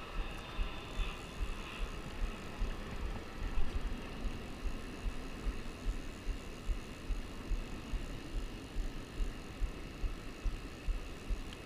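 Steady rush of water at a low river dam, with a soft regular thumping about twice a second.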